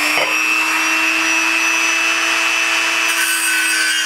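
Dremel rotary tool spinning at a steady high speed with a cut-off disc, grinding into a pole to shorten it. About three seconds in the grinding hiss gets brighter and a second, lower whine joins in.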